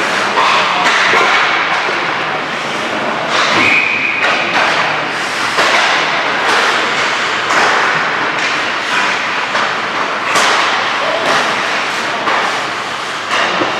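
Ice hockey skate session: skate blades scraping and carving the ice, with repeated knocks and thuds of pucks off sticks and boards, and a brief high squeal a few seconds in.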